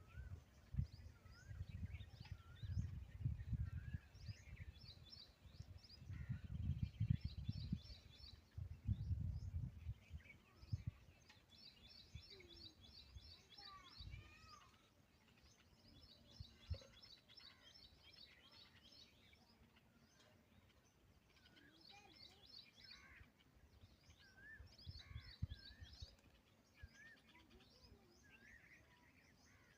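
Several small birds chirping, with quick repeated high trills over and over; a faint low rumble of noise runs under the first ten seconds or so.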